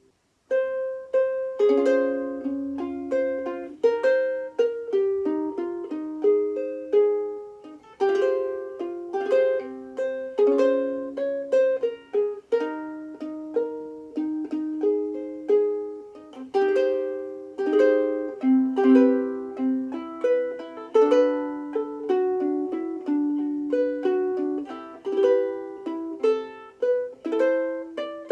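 Sumi Ditson-style soprano ukulele with an all-mahogany body and fluorocarbon strings, played solo. A picked melody mixed with chords, each note ringing and decaying, starting about half a second in after a brief pause.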